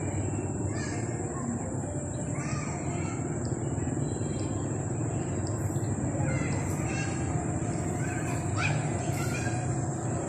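Outdoor ambience: birds calling in short scattered calls, a few more sharply from about six seconds in, over a steady high-pitched drone and low background noise.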